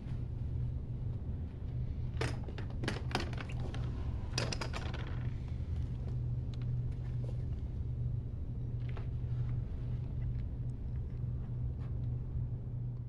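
Light metallic clinks and jingling, clustered about two to five seconds in, with a few fainter ones later, as an electric guitar is picked up and its strap put on. A steady low hum runs underneath.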